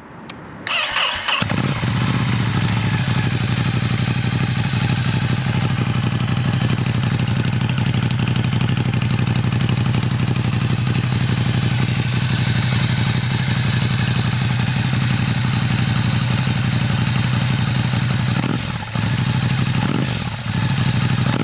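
2020 Ducati Scrambler Cafe Racer's air-cooled 803 cc L-twin, just fitted with a Termignoni single-can exhaust and race fuel map, turned over on the starter and catching about a second in, then idling steadily. The note changes briefly twice near the end.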